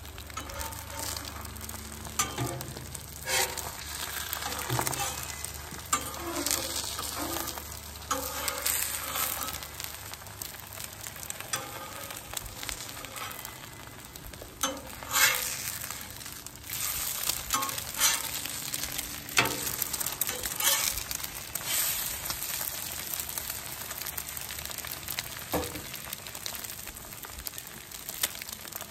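Eggs sizzling steadily on the steel top of a Blackstone 28-inch griddle. A metal spatula now and then scrapes and taps sharply against the plate as the eggs are turned.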